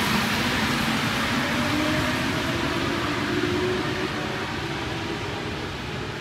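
Rubber-tyred Paris Métro line 1 train pulling out of an underground station into the tunnel: a steady rumble with a faint rising motor whine, fading as the train moves away.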